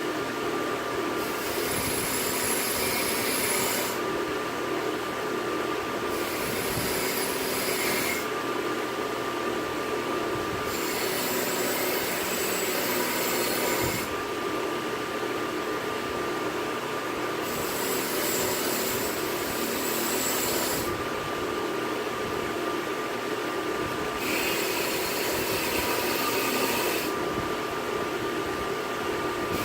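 North Ridge Tool belt grinder running with a steady whine while a steel knife blank is pressed against the belt in about five grinding passes, each a two-to-three-second burst of hiss with short easings between.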